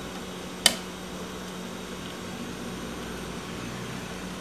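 A single sharp click about half a second in, a multimeter probe tip tapping against the TV panel's circuit board, over a steady low hum.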